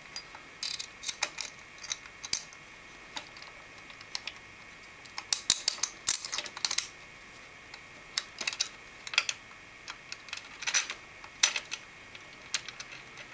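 Light clicks and small metallic ticks from handling a CPU cooler's metal mounting bracket, screw and plastic bushing while the screw is fitted and turned into the backplate. The ticks come in scattered clusters, busiest around five to seven seconds in.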